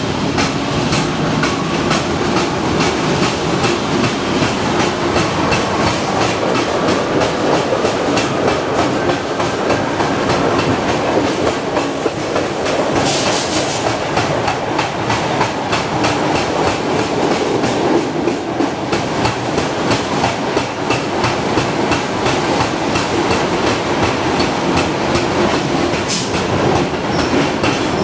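Vintage wooden Buenos Aires Underground car (Line A's La Brugeoise stock) running through a tunnel: a loud, steady rumble and rattle with constant clickety-clack of the wheels over the rail joints. A short hiss comes about 13 seconds in.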